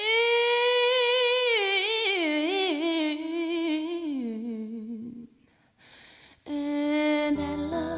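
Soundtrack song: a solo voice holds a long wordless note, then slides down through a falling vocal run and stops. After a short gap a new held note comes in, and piano notes join near the end.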